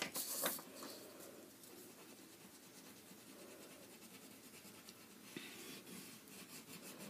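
Black wax crayon being rubbed back and forth across paper, a faint, dry scratching of colouring strokes. The scratching is loudest in a short burst right at the start and again briefly at about five and a half seconds.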